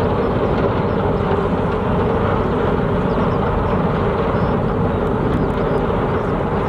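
Large car ferry's diesel engines and thrusters running with a steady, even drone as the ship manoeuvres alongside the berth.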